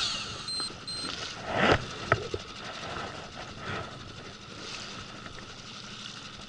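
Small fishing boat running at trolling speed: steady engine and water noise, with a short loud swish and a sharp click about two seconds in.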